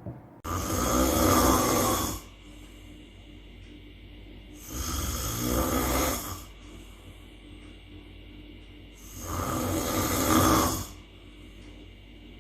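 A man snoring in his sleep with no anti-snoring device in use: three long, loud snores about four and a half seconds apart, with quieter breathing between them.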